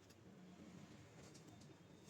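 Near silence, with a few faint short scrapes a little past halfway: an eraser rubbing the gold contacts of a laptop RAM stick to clean them.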